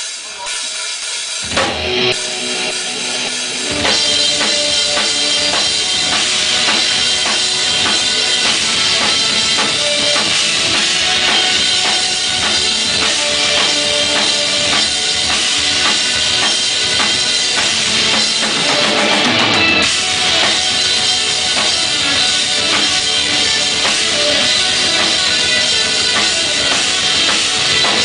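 Live rock band playing, led by a drum kit with bass drum and cymbals. It starts quieter and sparser, and the full band comes in about four seconds in.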